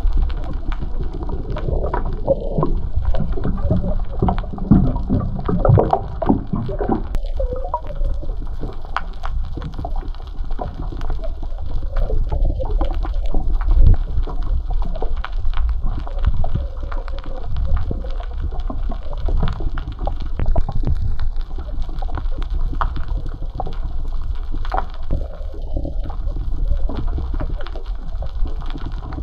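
Water sloshing and gurgling, with many small clicks and knocks throughout.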